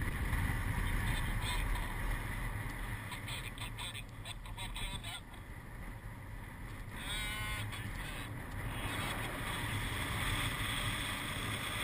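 Wind rushing over the camera microphone of a paraglider in flight, a steady low rumble. About seven seconds in, a short, buzzy pitched sound cuts through for under a second.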